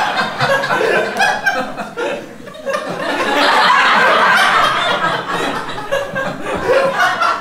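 Live comedy audience laughing at a punchline; the laughter dies down about two seconds in, then swells again.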